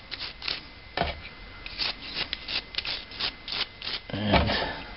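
Toothbrush bristles scrubbing the outside of a lawn mower carburetor in short, quick strokes, brushing off dirt and debris. There is a brief, louder sound near the end.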